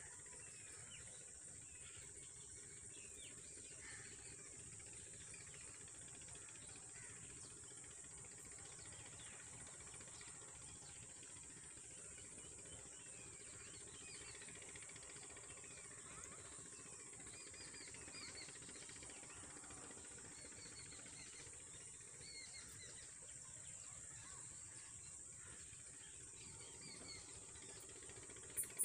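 Faint outdoor ambience: a steady high-pitched insect hiss with scattered faint small bird chirps, more of them in the second half.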